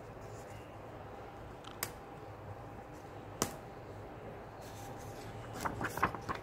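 Paper and card stationery handled by hand: two sharp taps about a second and a half apart, then a quick flurry of clicks and rustling near the end.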